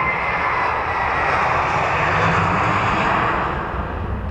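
Airbus A321 airliner's twin jet engines at takeoff thrust during its takeoff roll. The steady jet noise swells to its loudest about two seconds in and begins to fade near the end.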